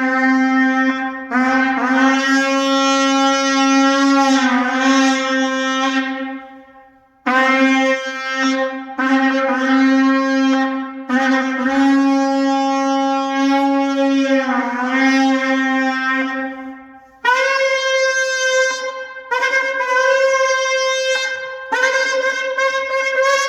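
Sable antelope horn shofar blown in long, loud blasts, the pitch bending at the end of each long note. Two long lower blasts, then from about three quarters of the way through a run of shorter blasts about an octave higher.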